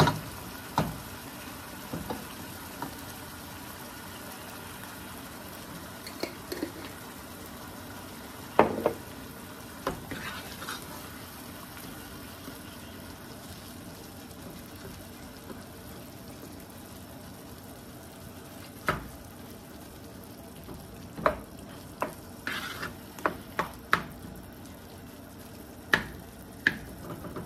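Ground beef and tomato sauce sizzling in a pot on the stove while a wooden spoon stirs it, with scattered sharp knocks of the spoon against the pot, several close together in the last few seconds.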